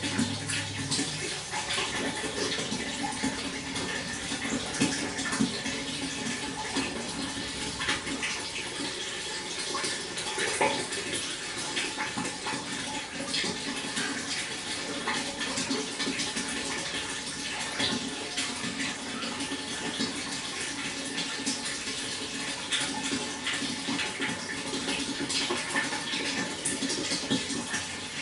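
Water flowing and splashing steadily, a continuous rushing with many small splashes.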